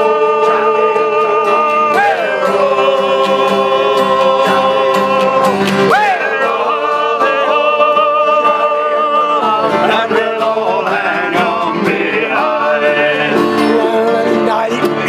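A group of men singing a sea shanty together in chorus, with acoustic guitars strummed along.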